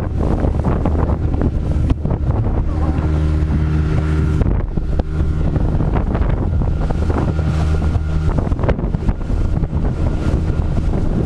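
Boat motor running with a steady hum that drops out briefly twice, under heavy wind buffeting the microphone.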